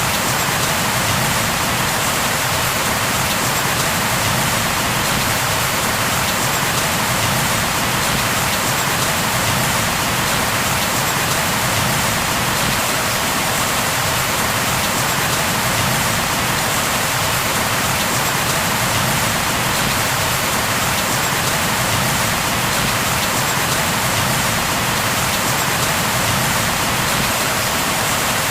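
Steady, heavy rain falling on a surface: a dense, even hiss of drops.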